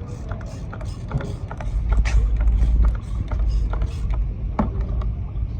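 Mechanical clicking, a steady run of about three or four clicks a second, over a low rumble that swells for about a second, roughly two seconds in.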